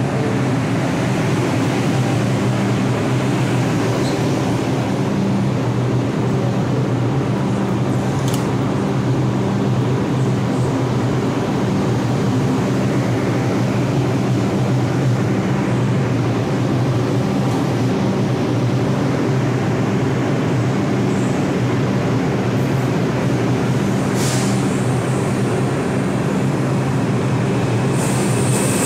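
New York City Transit R142 subway train in the station, giving a loud, steady, low multi-toned hum, with a couple of faint ticks along the way.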